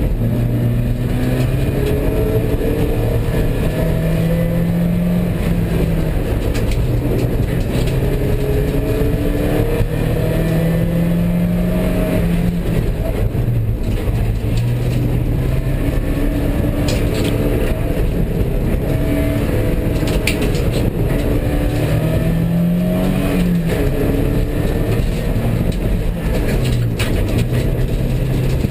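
Porsche 944's four-cylinder engine heard from inside the cabin under hard driving, its pitch climbing under acceleration and dropping off again, over and over, with a few brief sharp noises at points.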